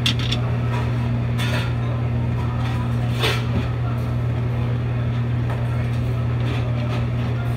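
Steady low machine hum in a commercial kitchen, with a few light metallic clinks, one about a second and a half in and a louder one a little past three seconds.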